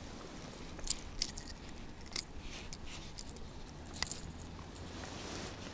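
A few light clicks and short rustles, scattered over several seconds, from a freshly caught perch and the lure's hooks and tackle being handled.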